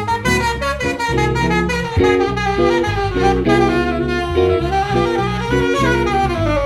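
Lupifaro Platinum tenor saxophone soloing in quick runs of notes in a jazz tune, backed by electric guitar and electric bass.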